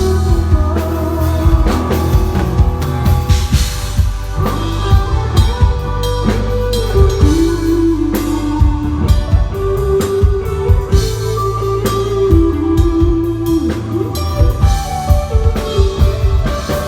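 A live band playing a rock song, with a drum kit, guitar and a melody line that moves in held notes.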